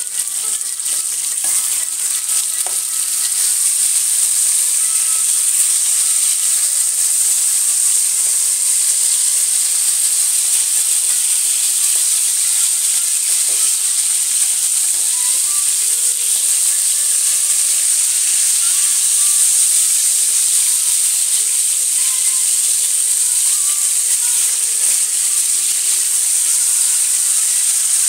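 Rohu fish pieces sizzling steadily as they shallow-fry in hot oil in a pan. The sizzle grows a little louder over the first few seconds, then holds.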